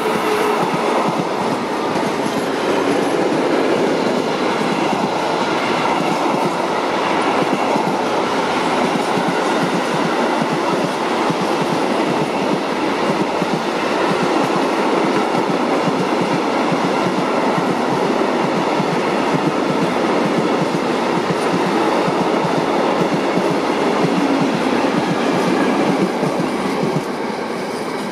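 Long freight train of open and tank wagons rolling past at close range behind an ÖBB Taurus electric locomotive: a steady, loud noise of wheels running and clattering over the rails, easing slightly near the end as the last wagons go by.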